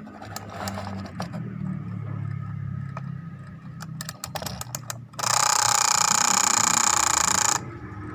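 Vintage wind-up tin alarm clock: scattered clicking and ratcheting from its clockwork mechanism. About five seconds in, its mechanical alarm bell rings loudly for about two and a half seconds, then cuts off suddenly.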